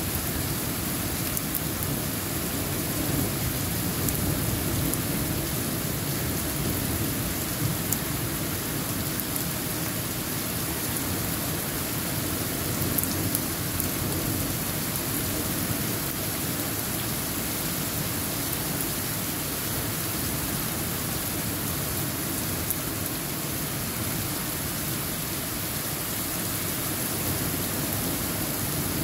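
Heavy rain pouring steadily in a thunderstorm, with scattered sharper ticks of individual drops.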